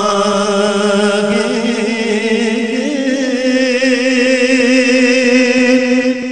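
A man chanting an Urdu naat in long, drawn-out notes with a wavering vibrato, stretching out the words 'jaenge' at the end of the line.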